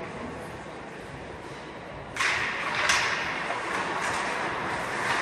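Ice hockey play: quiet at first, then about two seconds in a sudden rise of skates scraping the ice as play starts, with a sharp stick or puck knock about a second later and another near the end.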